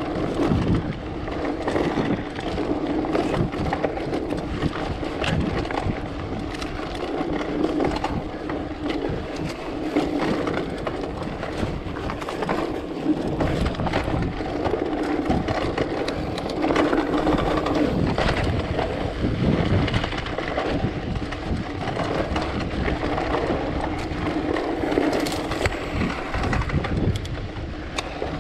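Rockrider mountain bike rolling over rocky singletrack: a steady rumble of the tyres on dirt and stones, with frequent small knocks and rattles from the bike over rough ground.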